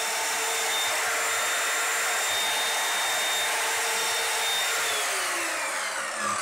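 Electric chop saw running at full speed while cross-cutting a potato, a steady motor whine over a rushing noise. About five seconds in the motor winds down, its whine falling in pitch.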